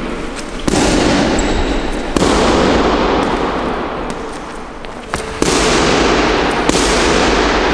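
Boxing glove striking a heavy punching bag with left hooks to the body: four blows, each a sudden thud followed by a long echoing tail.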